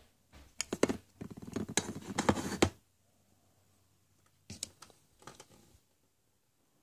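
Hollow plastic surprise eggs and small plastic toys clattering and clicking against each other as a hand rummages through a bin of them. There is a busy spell of rattling in the first three seconds and a shorter, quieter one after a pause.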